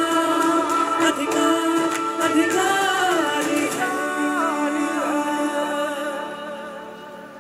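Music from a Hindi cleanliness-campaign song, with a sung melody and no clear words, fading out near the end.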